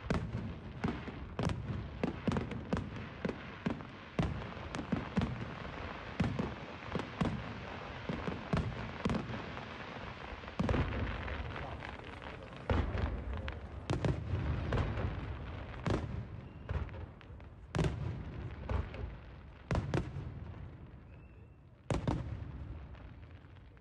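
Fireworks display: aerial shells bursting in quick, crackling succession, then heavier booms about every two seconds, each followed by a rumbling tail that fades, thinning out near the end.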